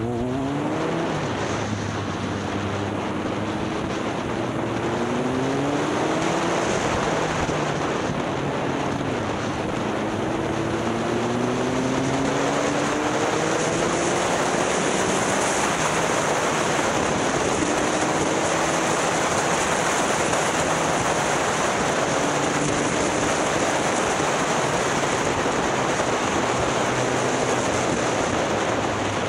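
Motorcycle engine pulling up through the gears, its pitch rising in several sweeps early on and then settling to a steadier cruise. Heavy wind rush on the helmet microphone grows louder as speed builds.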